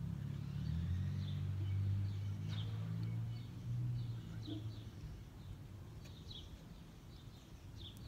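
A passing car's low rumble that swells in the first second and fades away after about five seconds, with small birds chirping in short repeated calls.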